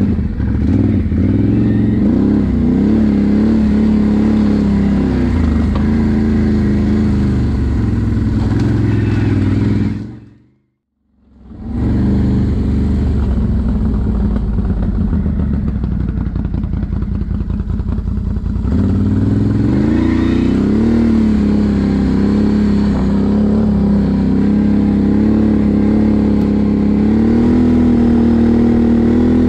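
Can-Am Renegade 1000 XMR ATV's V-twin engine running on a trail ride, its pitch rising and falling with the throttle. The sound fades out to silence for about a second around ten seconds in, then comes back.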